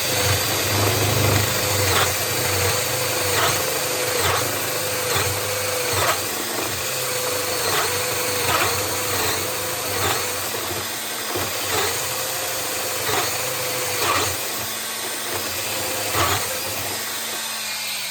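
DeWalt 18-volt cordless drill, running on a 20-volt lithium-ion pack through an adapter, drilling a hole under steady load in speed range 2. The motor keeps going without stalling, its pitch dipping briefly every half second to a second as the bit bites.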